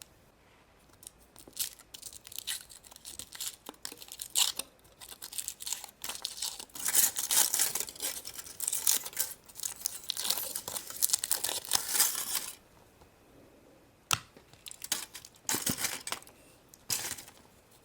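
Foil wrapper of a chocolate surprise egg being torn and crinkled off by hand, in irregular bursts of rustling, with a short pause and a sharp click about fourteen seconds in before more crinkling.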